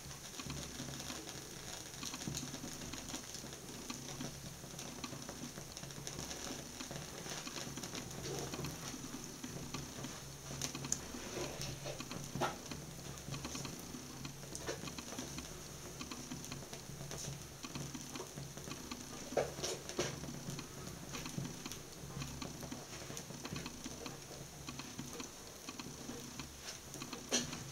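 A ballerina slip-on shoe burning, its flames crackling steadily with scattered small pops and a few louder snaps. A steady low hum runs underneath.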